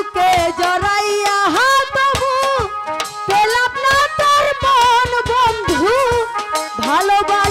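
Live Bangladeshi jari folk music: a sliding, ornamented melody over a steady hand-drum beat.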